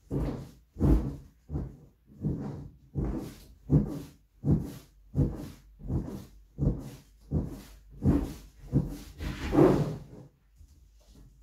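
Inflated exercise ball being bounced on, its skin rubbing and thudding with each bounce in a steady rhythm of about three every two seconds. The bouncing stops about ten seconds in, and the last bounce is the loudest.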